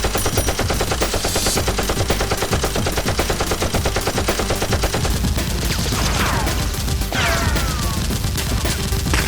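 Rapid automatic gunfire, the shots coming in a fast continuous rattle of roughly ten a second. In the second half there are a few falling whistling tones.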